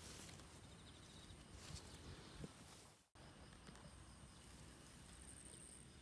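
Near silence: faint outdoor garden ambience with a thin, steady high-pitched tone. The sound drops out for a moment about halfway through.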